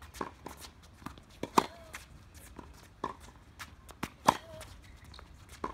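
Tennis ball struck hard by a racket twice, about 2.7 seconds apart, in a baseline forehand rally. Softer knocks of the ball bouncing on the hard court and of shoes moving fall between the hits.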